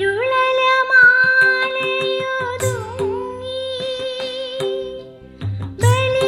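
Music from a Malayalam folk-style song: a long held melody line with steady overtones over light percussion and soft low drum beats.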